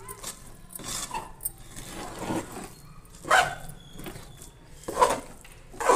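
Metal spoon scraping and stirring a thick, sticky jaggery-and-nut mixture against the sides of an aluminium pot, in irregular strokes. The loudest scrapes come about three seconds in and again near five.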